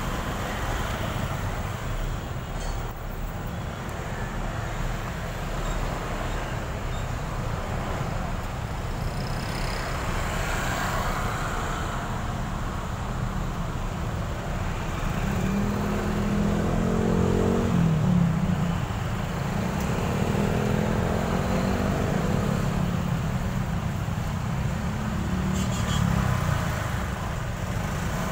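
Heavy, slow city traffic heard from a moving motorcycle: a steady mix of engines and road noise. About halfway through, a nearby engine's deeper drone grows louder for several seconds.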